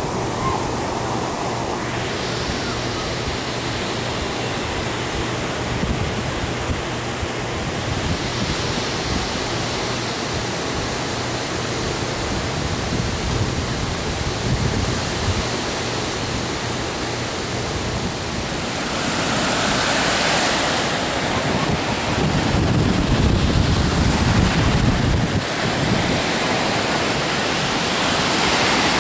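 Surf breaking and washing up a sandy shore, a steady rushing wash of waves, with wind buffeting the microphone. It grows louder about two-thirds of the way in.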